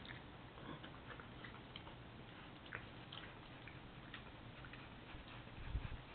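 A badger and a fox eating peanuts on a lawn, heard faintly as irregular small crunches and clicks over the steady hiss of a CCTV camera's microphone, with a few low thumps near the end.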